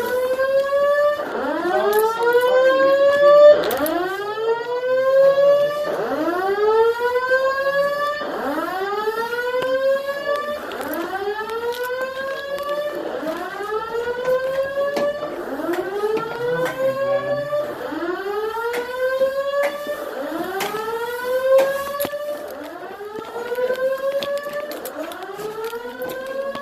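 Simplex voice-evacuation fire alarm system sounding its whoop tone through the building speakers: a rising sweep repeated about once every second and a half.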